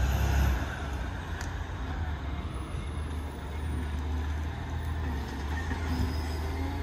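Side-loader garbage truck's diesel engine running steadily as the truck comes slowly down the street, a low rumble with a hiss of road and street noise over it.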